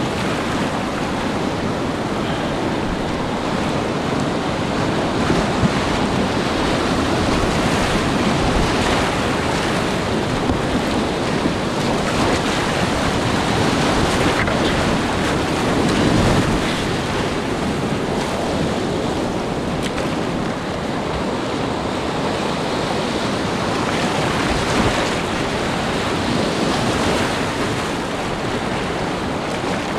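River whitewater rushing and churning loudly around a kayak running a rapid, with waves breaking over the bow and spray splashing at close range. The rush stays steady, swelling briefly a few times.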